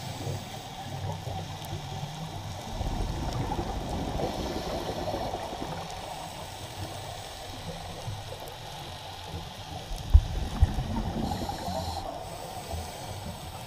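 Water noise heard underwater at the camera: a steady muffled rush and gurgle with a low rumble, and two sharp low thumps about ten seconds in.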